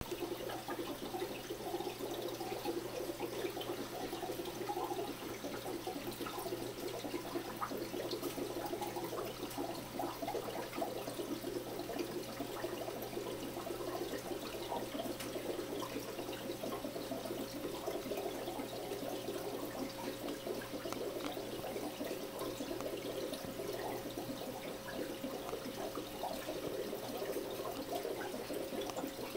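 Aquarium air stone bubbling steadily: a dense stream of bubbles rising and popping at the water surface, a continuous fizzing crackle over a faint steady hum.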